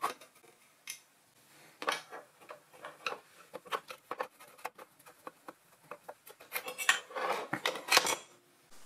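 Screwdriver backing out the small screws of a sheet-metal motor cover: light metallic clicks and scrapes. A louder metal clatter about seven seconds in as the cover is pulled free.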